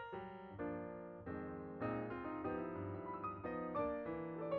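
Background piano music: chords and single notes played at a gentle, even pace.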